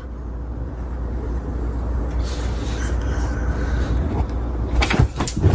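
A steady low rumble, with a few sharp clicks near the end.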